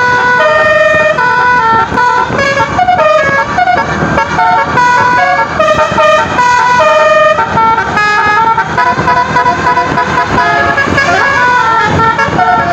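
Tour bus's Basuri telolet musical horn playing a long tune, its notes stepping quickly up and down in pitch.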